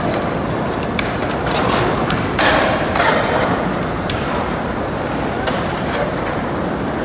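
Skateboard wheels rolling on concrete, a steady rumble, with scattered clacks and knocks of boards and a louder scrape of noise about two and a half seconds in.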